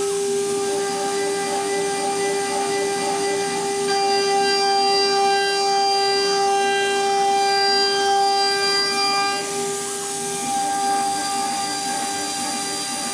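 Mechatron HFO-M8022-24 water-cooled 2.2 kW spindle on a homemade CNC mill running at about 24,000 rpm, a steady high whine, while its 8 mm end mill cuts a pocket in aluminium under feed.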